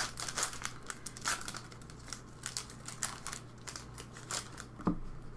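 Wrappers of Upper Deck Series 1 hockey card packs being torn open and crinkled by hand, a run of irregular crackles and rustles, with a small thump near the end.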